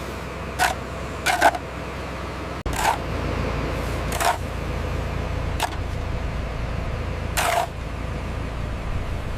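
Heavy construction machinery running with a steady low diesel rumble, which steps up after a brief dropout a little under three seconds in. About seven short, sharp bursts come at irregular intervals over it.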